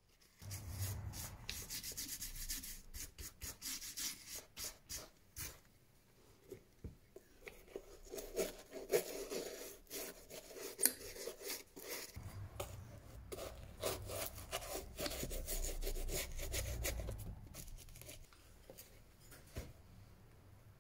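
Hand tool scraping old cork filler out of a leather shoe's bottom, a long run of quick, rough scraping and rubbing strokes, to clear it for new cork.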